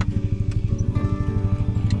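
Background music: held notes over a quick, steady pulse.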